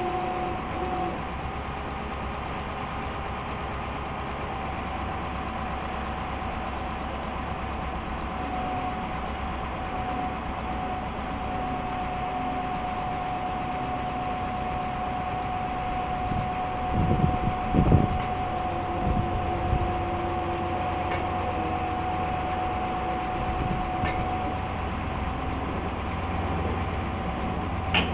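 Caterpillar diesel of a Ford L8000 derrick digger running steadily, powering the hydraulic boom and auger, with a steady whine over the engine's low rumble. A few louder low surges come about two-thirds of the way through.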